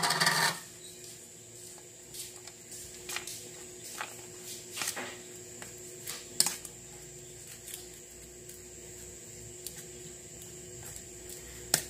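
A metal spoon stirring and turning crumbly cuscuz (steamed corn-flour couscous) in a stainless steel bowl: soft scraping, with a few scattered clinks and scrapes of the spoon against the metal. A steady faint hum runs underneath.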